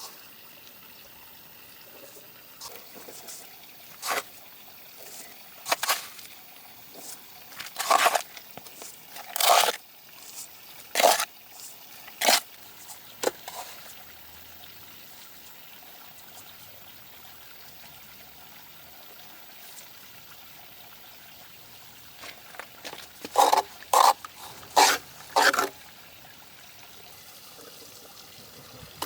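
Short splashes of water, about a dozen separate ones: a scattered run in the first half and a quick cluster of four or five near the end, with a quiet stretch between.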